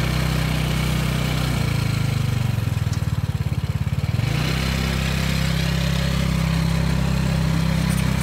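Small single-cylinder engine of a Hammerhead Twister go-kart running as the kart is driven, its engine freshly rebuilt and being broken in. The note shifts about a second and a half in and wavers with a pulsing beat. A little past four seconds it settles into a steadier, higher pitch as the kart pulls forward.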